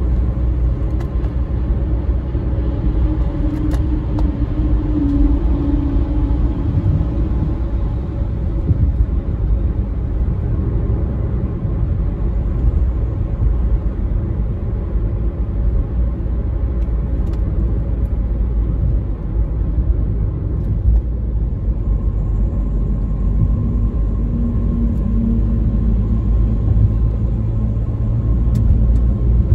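Steady low rumble of road and engine noise heard from inside a car's cabin while driving at speed on an expressway. It grows a little louder near the end as a truck comes alongside.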